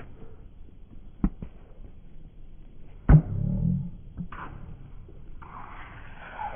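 Tennis rally: a sharp ball strike about a second in, then a loud close forehand hit of racket on ball about three seconds in, followed by a brief low rumble. A stretch of hissy noise follows near the end.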